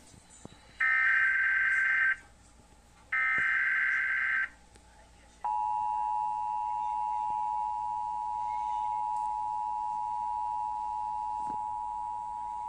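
Emergency Alert System SAME header: two harsh digital data bursts about a second apart, the last two of its three repeats. About five seconds in, the EAS two-tone attention signal starts, a steady electronic tone that announces a warning is about to be read.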